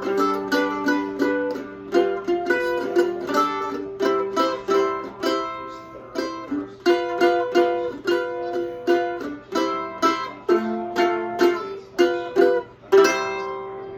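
Mandolin playing a blues in the key of C, repeated strummed chords and picked notes. The piece ends on a last strummed chord near the end that rings out and fades.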